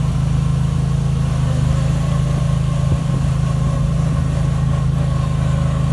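Riding lawn mower's small engine running steadily at a constant speed, with a faint steady whine above the low hum.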